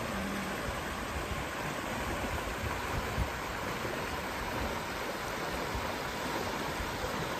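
Shallow rocky stream rushing over stones and a small cascade: a steady rush of flowing water.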